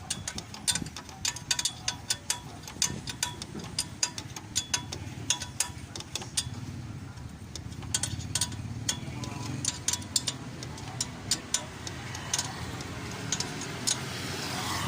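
Irregular sharp metallic clicks and taps, about two or three a second, of hand tools working on a motorcycle engine during a top overhaul.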